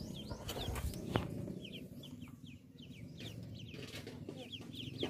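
A brood of ducklings peeping in short, high, falling chirps, about three a second, over a mother hen's low clucking. A sharp knock about a second in.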